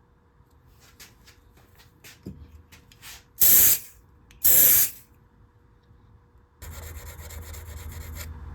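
A few light taps, then two short hissing sprays about a second apart, the loudest sounds here. From about two-thirds of the way through comes a steady rubbing: wet sanding with 600-grit paper on a thin super-glue finish layer over a guitar body.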